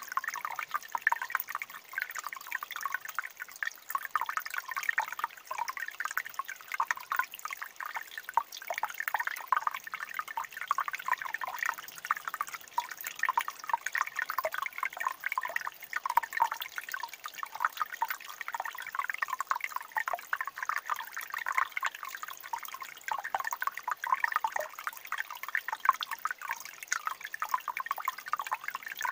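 Shallow stream of water trickling over and between stones: a steady, dense run of small plinks and gurgles with no pause.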